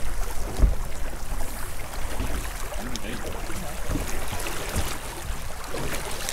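Steady low rumble and wash of a boat out on the sea, with wind and water around the hull.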